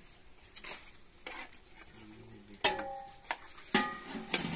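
A utensil stirring and scraping in a cooking pot, with two sharp clinks that ring briefly about two and a half and three and a half seconds in, then a few lighter knocks.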